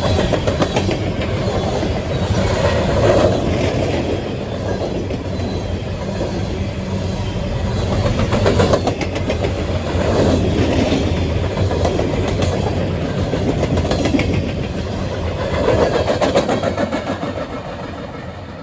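Coal train's hopper cars rolling past at speed, steel wheels clacking over the rail joints with a steady rumble. The clacking swells louder every few seconds, and the sound fades near the end.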